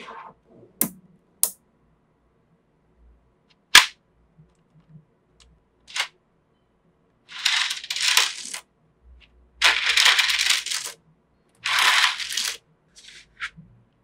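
Small neodymium magnetic balls clicking sharply as strips snap together, four single clicks spread over the first six seconds. Three longer clattering bursts of about a second each follow as the ball strips are handled and closed into a ring.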